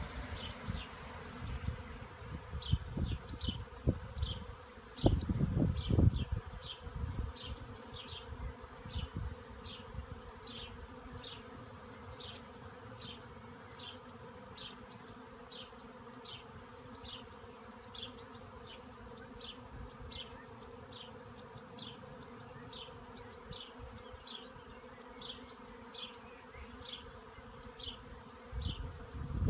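Honeybee swarm humming: a steady drone from the mass of bees flying around the swarm cluster on the branch. A short, high, falling chirp repeats about one and a half times a second above the hum, and a few low buffets hit the microphone in the first six seconds.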